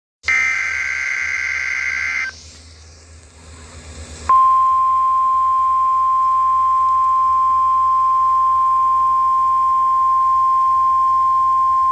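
NOAA Weather Radio emergency alert: about two seconds of a harsh two-tone warbling data burst (the SAME digital header), a short gap of faint radio hiss, then the steady single-pitch 1050 Hz warning alarm tone starting about four seconds in and holding on.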